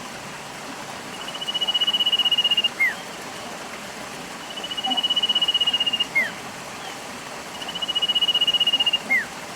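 Stream flowing with a steady rushing hiss. Over it, an animal call repeats three times about three seconds apart: a fast trill held at one high pitch for about a second, then a short falling note.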